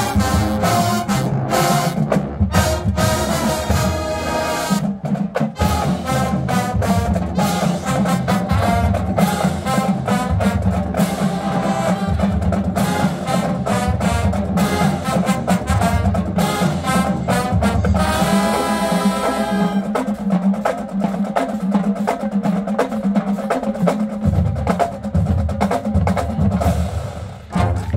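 Marching band playing: brass with the drumline, the percussion busy and prominent. The band drops off briefly near the end, then comes back in.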